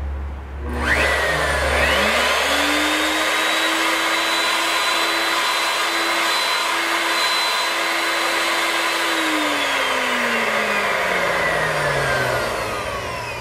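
Porter-Cable coving router with a half-inch cove bit switched on about a second in, spinning up to a steady high whine as it makes a test pass along a scrap piece to check the bit height, then switched off and winding down, its pitch falling, near the end.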